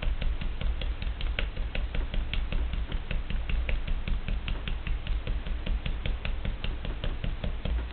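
Needle being jabbed again and again through the clogged metal mesh filter of a French-press teapot into a wooden board, punching new holes to clear it: a quick, even run of sharp clicks, about five or six a second.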